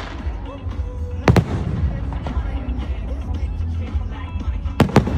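Firework display shells bursting: one sharp bang about a second in and two more in quick succession near the end, over music and crowd chatter.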